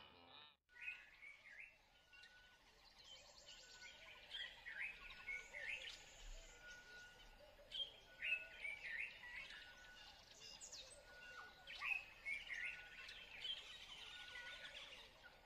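Birds chirping and calling in short rising and falling phrases, with a brief steady note at one pitch repeated over and over; faint natural ambience.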